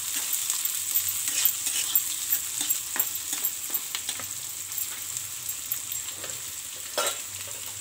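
Chopped onions sizzling in hot oil in a non-stick frying pan as they are lightly fried, with a spatula scraping and tapping against the pan during the first few seconds of stirring. The sizzle carries on once the stirring stops, with one more knock on the pan near the end.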